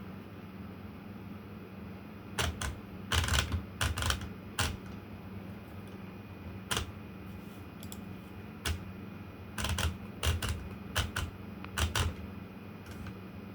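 Olympia Traveller de Luxe portable manual typewriter being typed on: sharp key strikes in short irregular bursts, with gaps of a second or more between them.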